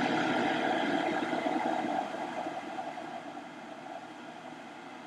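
Small electric fan of a solder fume extractor running steadily, a rushing hum of moving air. Its level drops gradually from about two seconds in and settles lower.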